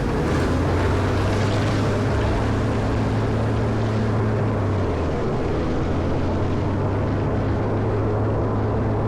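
Diesel engine of a Caterpillar 140M motor grader running steadily under load while it plows snow. Its pitch drops slightly about five seconds in.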